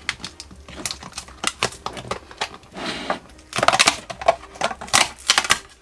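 A sticky fiber-board insulator being peeled away from an e-bike lithium battery pack: a quick, irregular run of sharp crackling clicks. The clicks come thickest in the second half.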